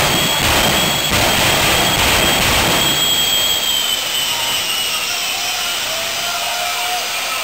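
Jet-powered semi truck's jet engine roaring with a high turbine whine while flames shoot from its stacks. After about three seconds the whine falls in pitch and the roar eases.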